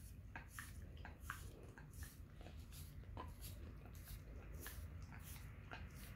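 Mixed-breed dog licking a bare foot: faint, wet tongue smacks and slurps, irregular, about two or three a second.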